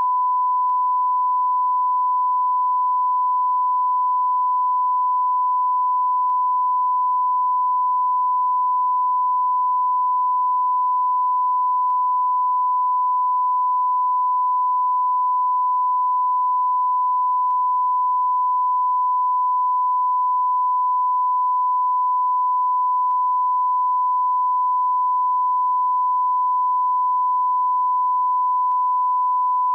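Beep sound effect: one pure, steady electronic tone held without a break.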